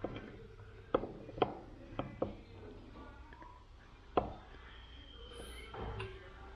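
A handful of light, sharp clicks and knocks as a differential's ring gear and carrier are handled and turned, the strongest about four seconds in, over a low hum.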